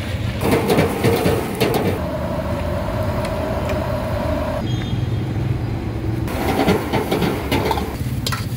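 A steady low motor hum with stretches of clatter over it, and a steady higher whine for a couple of seconds near the middle.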